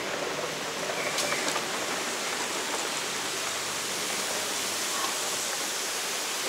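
Steady rushing hiss of a Yui Rail monorail train at the station platform, growing brighter from about two seconds in.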